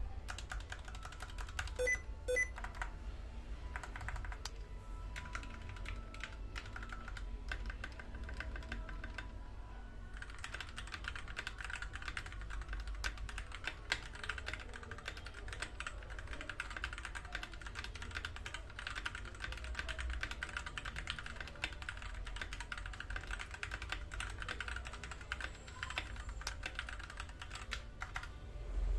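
Typing on a Tecware B68 mechanical keyboard fitted with Gateron Yellow linear switches. The keystrokes clack in an uneven scatter for the first ten seconds or so, then run on as fast, continuous typing.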